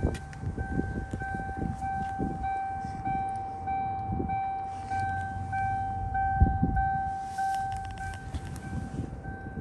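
A car's electronic warning chime beeping steadily about twice a second with the driver's door standing open, over low rustling and bumping from handling.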